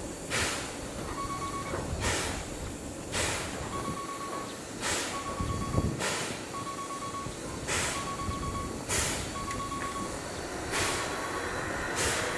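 Steam locomotive C56 standing on a turning turntable, giving off sharp bursts of steam hiss about every second and a half. A short steady electronic beep repeats at the same pace between them, and a whine that glides in pitch joins near the end.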